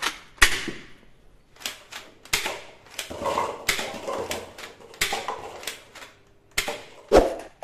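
Toy foam-dart Gatling blaster firing, a string of sharp, irregular clacks roughly one a second, as darts hit and topple stacked paper cups with a light clatter.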